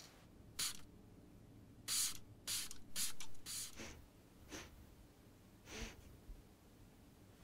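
Perfume atomiser spraying in short hissing bursts, seven in all, bunched close together in the first four seconds and then more spread out.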